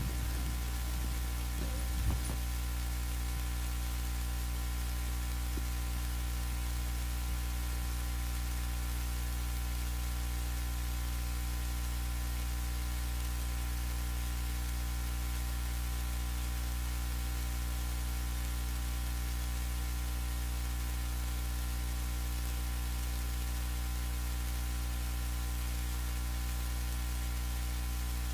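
Steady electrical mains hum with its overtones and a hiss underneath, from the sound system's audio line; a few faint clicks in the first two seconds.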